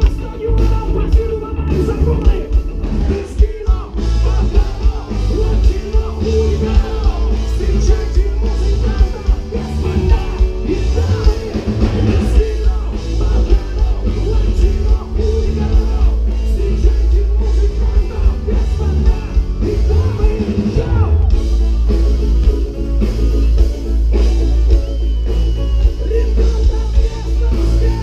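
Live band with electric guitars and saxophone playing a Balkan-style tune, loud through a large concert PA with heavy bass.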